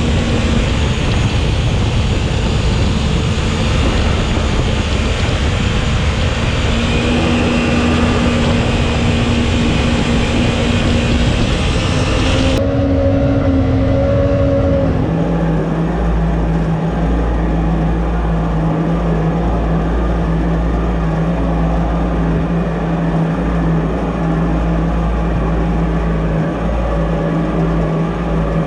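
Mini jet boat's 1053cc Yamaha four-stroke engine running under way, with the rush of water from the jet drive. About twelve seconds in the sound turns suddenly duller, and a steady low engine drone with a deep rumble carries on.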